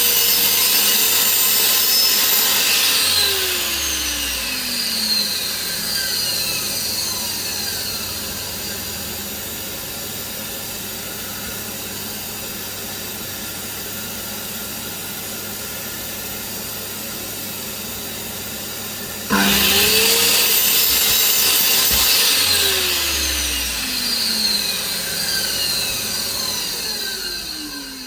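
Mitre saw cutting floor tiles: the motor runs at full speed, then is released and the blade spins down with a falling whine. About nineteen seconds in the saw is switched on again, runs up, cuts briefly and spins down again near the end.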